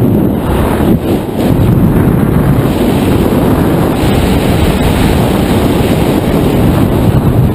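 Loud, steady rush of airflow buffeting the microphone of a camera mounted on a hang glider in flight.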